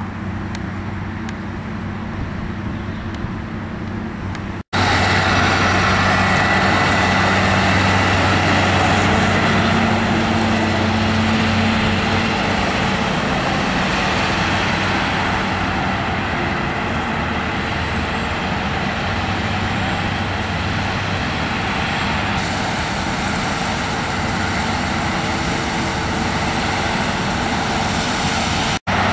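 Claas Lexion 670 Terra Trac combine harvester working in the field while threshing soybeans: a steady engine drone mixed with the rushing noise of the threshing and residue-spreading machinery. The sound breaks off abruptly about five seconds in and comes back louder, with another brief break near the end.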